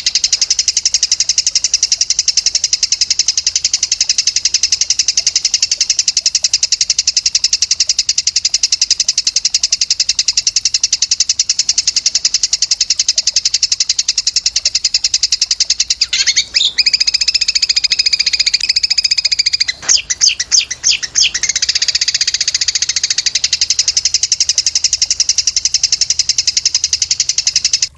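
A very rapid, continuous high-pitched trill of songbird tutor ('masteran') song, played to train cage birds to sing. About 16 seconds in it shifts to a different trill that opens with a rising note, and it stutters briefly around 20 seconds before the steady trill resumes. It cuts off suddenly at the end.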